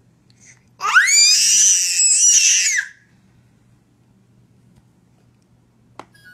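A baby's loud, very high-pitched squeal lasting about two seconds. It sweeps sharply up in pitch at the start, holds, and drops off at the end. A single faint click follows near the end.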